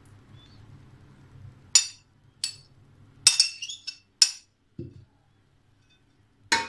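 A metal spoon clinking against a ceramic plate and glass dish as jelly cubes are scraped off onto a trifle: about six sharp, short clinks at uneven intervals. There is one dull, soft knock about five seconds in.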